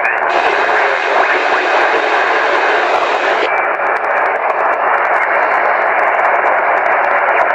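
Static hiss from an Icom IC-7000 receiver in upper-sideband mode being tuned down through the 27 MHz CB band. The hiss turns duller about three and a half seconds in as its upper part cuts off.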